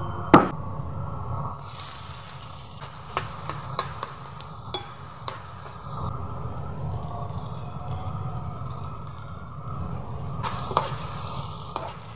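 Chopped onion and peppers sizzling in hot oil in a frying pan, stirred with a metal spoon that clicks and scrapes against the pan several times. A sharp knock about half a second in is the loudest sound.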